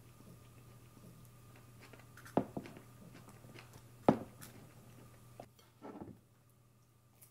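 Tableware sounds of eating with wooden chopsticks: two sharp clicks of chopsticks against a ceramic plate or bowl, about two and a half and four seconds in, with a few lighter ticks between. A short soft scuffing noise follows near six seconds.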